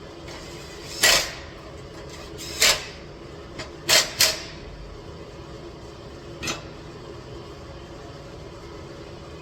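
A series of short, sharp clunks, five or six of them, most bunched together in the first half, over a steady low hum.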